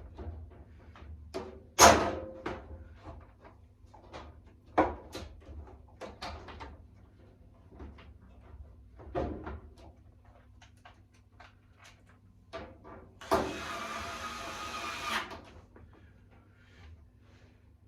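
Scattered knocks and clicks of metal parts and tools being handled while fitting the drum shaft and bearing of a Hotpoint tumble dryer, the loudest knock about two seconds in. A steady-pitched grating sound runs for about two seconds from about thirteen seconds in.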